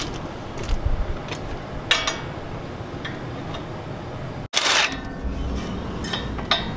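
Steel sockets and hand tools clicking and clinking against metal while a socket is tried on the brake caliper bracket bolt. Two-thirds of the way through, right after a brief drop-out, comes a short burst of noise, the loudest sound here.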